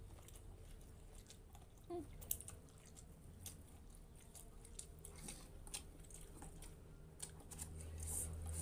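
A person chewing and eating instant noodles close to the microphone, with scattered small mouth and utensil clicks over a faint low hum.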